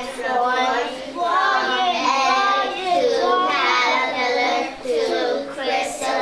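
A class of young children reading a sentence aloud together in unison, in phrases with short pauses between them.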